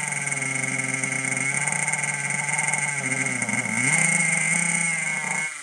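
Thundertiger SSK nitro monster truck's small two-stroke glow engine running unevenly. Its revs sag about three seconds in, then pick back up louder, and it starts to die away right at the end.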